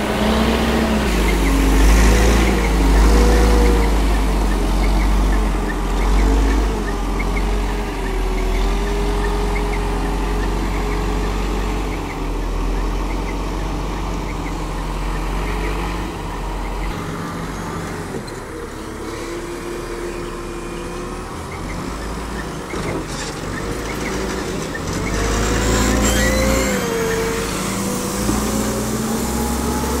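Diesel engine of an Ajax Argo 4500 self-loading concrete mixer running under load, its engine speed rising and falling several times as the machine works. Near the end it revs up while the loading bucket digs into the aggregate pile.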